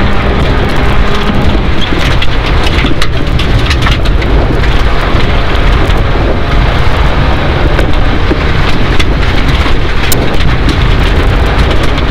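Rally car driving on a gravel stage, heard from inside the cabin: loud, steady engine and road noise with many sharp ticks of gravel and stones striking the underbody.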